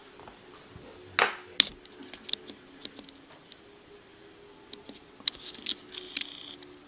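Scattered sharp clicks and light taps from handling the small pins and parts of a gutted lock cylinder, the loudest a brief scraping click about a second in, with a cluster of clicks near the end.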